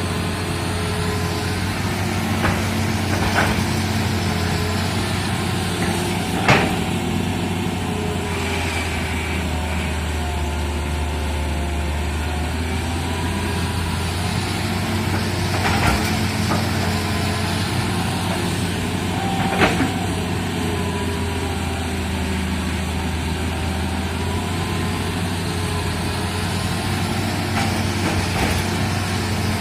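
Excavator's diesel engine running steadily under work, with a handful of sharp metallic clanks scattered through.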